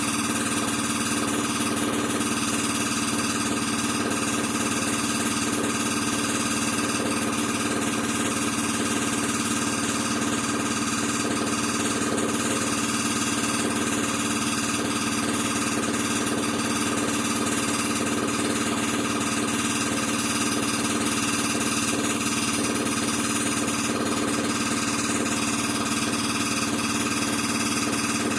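Air compressor running steadily: a constant mechanical hum with an even hiss over it, unchanging throughout.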